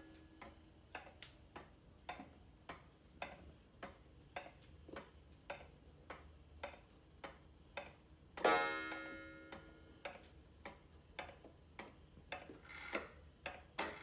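Antique E.N. Welch regulator wall clock ticking steadily, about two ticks a second. About eight seconds in, its hammer strikes the gong once with a loud ringing note that slowly dies away. A few louder clicks come near the end.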